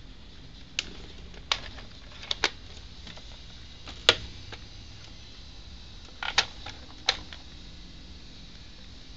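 Sharp plastic-and-metal clicks and snaps from a Polaroid Piranha 790 instant camera being handled, about eight at uneven intervals, some in quick pairs, the loudest about four seconds in.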